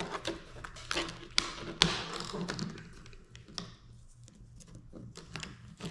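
Plastic package of soft-plastic worms being opened and handled on a table: crinkling with sharp taps and clicks for about three seconds, then only scattered faint ticks.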